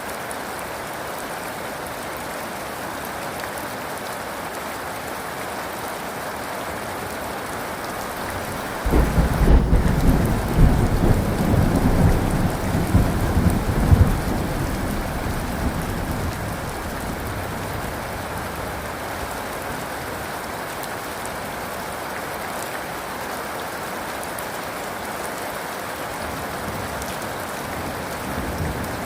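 Steady heavy rain falling, with a thunderclap breaking in about nine seconds in: a sudden loud low rumble with crackles that rolls for about five seconds and then fades back under the rain.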